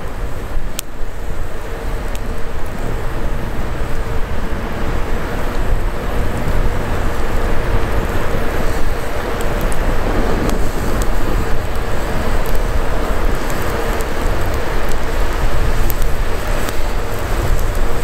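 Small campfire of thin twigs burning, with sparse sharp crackles over a steady low rumbling noise.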